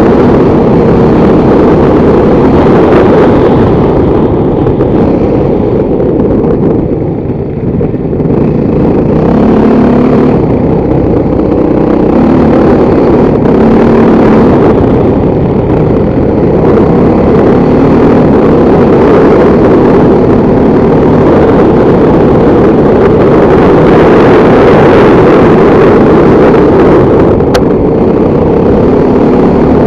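Motorcycle engine running loud and steady under way, easing off briefly about seven seconds in, then picking up again.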